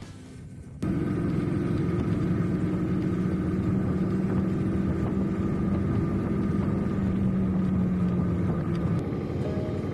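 Small Honda 125 cc single-cylinder motorcycle engine running at a steady pitch, starting abruptly about a second in; near the end the note drops away and the sound gets a little quieter.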